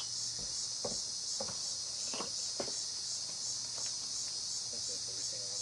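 Steady, high-pitched insect chorus that pulses evenly about four times a second. A few faint knocks sound in the first half, and faint voices come near the end.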